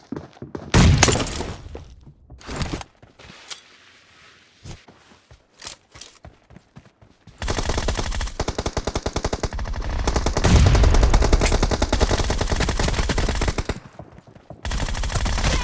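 Video game gunfire: a few scattered shots and impacts at first, then long stretches of rapid automatic fire from about halfway through, broken by a short pause near the end.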